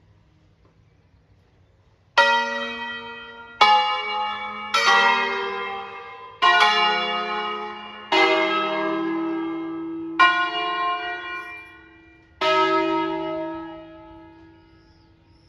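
Five-bell ring of church bells tuned to E-flat, mostly cast by Crespi in 1853. After a couple of seconds of quiet they sound seven strokes one bell at a time at uneven spacing, forming a slow tune of changing pitches, and each stroke rings on and decays. It is the short solemn 'concerto' played by the tower's automated bell control, and the last stroke fades near the end.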